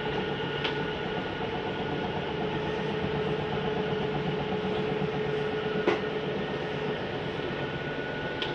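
Electric slide-out motor of an RV travel trailer running steadily as the slide room retracts, a hum with a steady whine that stops about seven seconds in.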